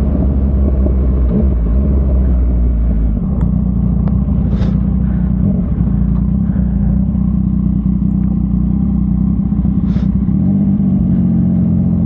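Motorcycle engine running steadily at an even engine speed, with two short hisses about four and a half and ten seconds in.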